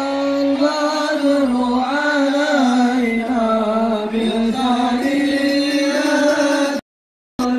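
Music with a singer holding long, wavering melodic notes. The sound cuts out completely for about half a second near the end.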